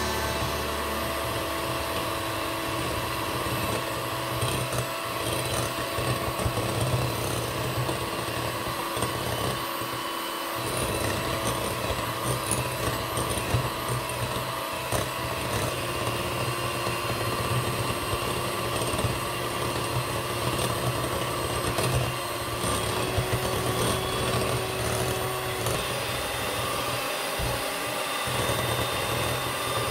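Electric hand mixer running steadily, its twin metal beaters whisking eggs in a glass bowl.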